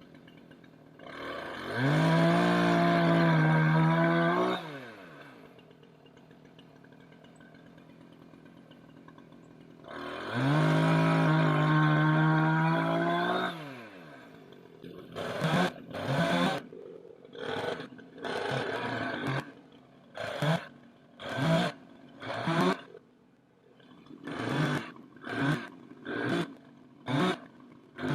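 Two-stroke chainsaw held at full throttle twice for about three seconds each, the pitch climbing as it revs up and sagging as the throttle is released. Near the end comes a run of short, quick throttle bursts.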